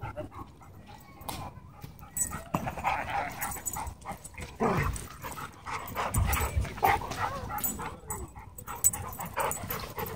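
Dogs playing rough at close range, with scattered barks and yips over scuffling and rustling noise.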